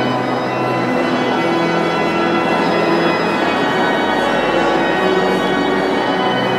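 Church organ playing held chords, the notes changing every second or two, with a deep bass note about halfway through, over the murmur of a crowd.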